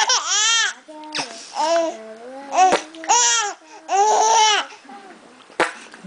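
A five-month-old baby laughing in high-pitched, squealing bursts, four times, with babbling between them.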